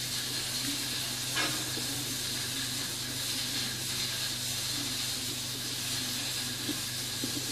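Steady background hiss over a low hum, with one faint tap about a second and a half in and a few small soft handling noises near the end.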